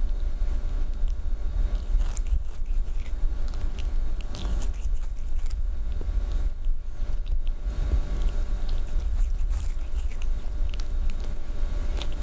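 Cat grooming itself close up: licking its fur and nibbling at it, giving irregular wet clicks and small biting sounds. A steady low rumble runs underneath.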